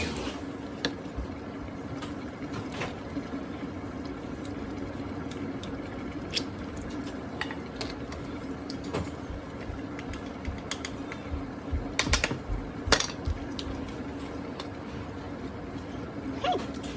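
Pot of stew cooking on the stove: scattered clinks and taps of a utensil against the pot over a steady low hum, with a cluster of sharper knocks about twelve to thirteen seconds in.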